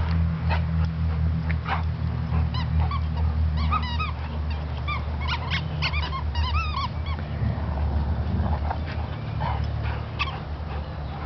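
Two dogs play-wrestling, giving short high whines and yips, most of them in the middle few seconds, over a steady low mechanical hum.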